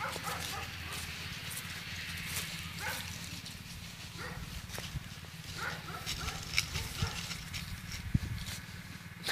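Dry fallen leaves rustling and crunching in short scattered bursts as a small dog sniffs and moves through them, over a steady low rumble.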